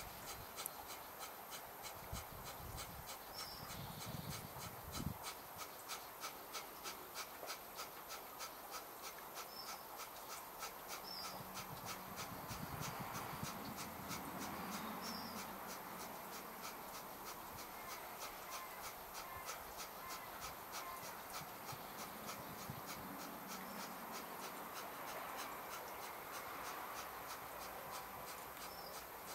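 Kapalabhati breathing: a rapid, even series of short forceful exhalations, about two a second, each pushed out actively with the inhale left passive. The strokes are sharpest in the first half and grow fainter later on.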